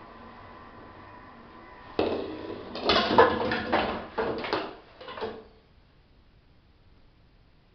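A ball strikes the pins of a homemade mini nine-pin bowling lane about two seconds in, and the pins clatter and topple against each other for about three seconds before it goes quiet.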